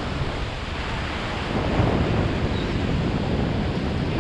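Surf breaking and washing around pier pilings, a steady rushing wash of water, with wind buffeting the microphone.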